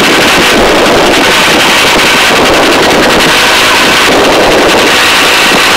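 Helicopter rotor and engine running steadily and loudly in the cabin, with air rushing in through the open side door.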